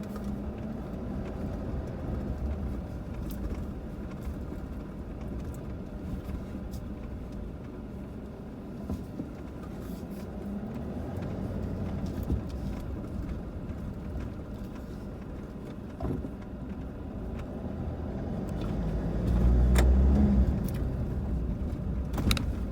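A vehicle driving along a muddy, bumpy dirt track: steady engine and road rumble with scattered knocks and rattles, swelling louder for a couple of seconds near the end.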